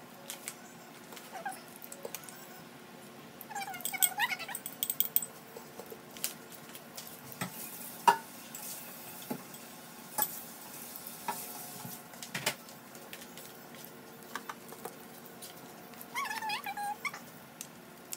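Eggplant omelette frying in a nonstick pan with a faint sizzle and a few sharp utensil clicks and taps, the loudest about eight seconds in. Twice, about four seconds in and near the end, a short wavering pitched call.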